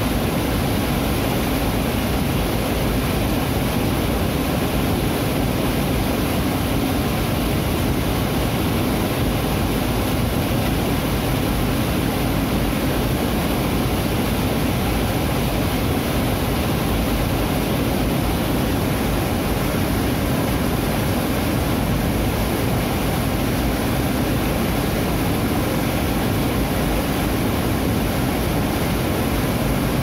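Small waterfall cascading over river boulders into a foaming pool: a loud, steady rush of falling water.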